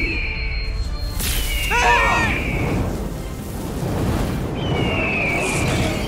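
A shrill bird-of-prey screech, falling in pitch, sounds three times, with a harsher cry around two seconds in, over dramatic music and a steady low rumble of energy effects.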